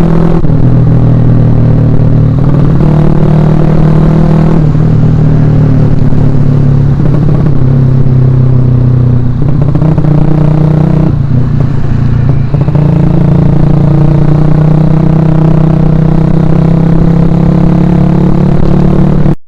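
Suzuki Shogun Axelo R's single-cylinder four-stroke engine running while being ridden, its note dropping and rising several times as engine speed changes.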